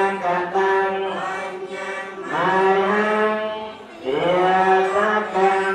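Buddhist chanting: voices intoning long, drawn-out notes, each new phrase sliding up in pitch into a held tone, with a brief drop in the chant just before the fourth second.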